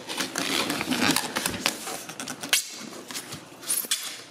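Plastic packaging crinkling and rustling as it is handled and pulled off a boxed computer case, a dense run of crackles that thins out after about two and a half seconds, with a few more sharp crackles later.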